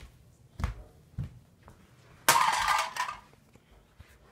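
Handling noise from plush toys pressed against the recording phone: two soft knocks, then a loud rustling scrape a little over two seconds in that lasts most of a second.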